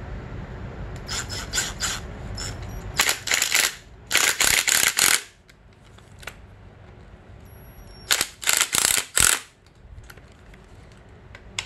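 Cordless driver with a 5 mm hex bit running in several short bursts as it screws in the bolts of a plastic fork guard. The longest bursts last about a second.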